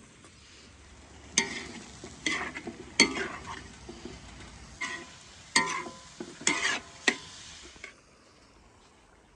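Metal slotted spatula scraping and stirring cubed pork in a large black wok, the meat sizzling as it fries. A series of sharp scrapes, irregularly spaced, stopping about eight seconds in.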